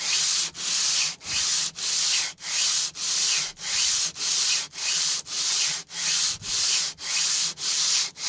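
Cast-iron sole of a Footprint No. 5 hand plane being rubbed back and forth on 120-grit abrasive under its own weight: even, rhythmic rasping strokes, about one every 0.6 seconds, as the sole is lapped flat.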